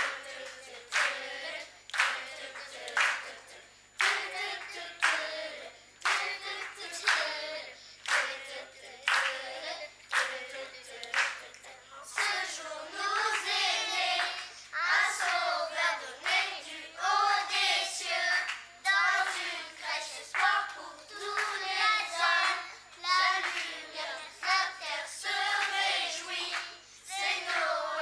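Children's choir singing, with steady hand claps keeping the beat. The singing grows fuller about halfway through.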